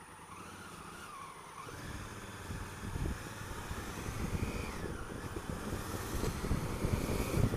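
Honda Africa Twin CRF1000L's parallel-twin engine pulling away while filtering between cars. From about two seconds in, wind buffeting on the microphone rises with it and grows steadily louder.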